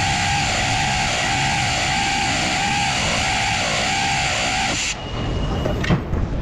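Background music with a repeating pattern, cutting off suddenly about five seconds in; after it, quieter workshop noise with a single knock.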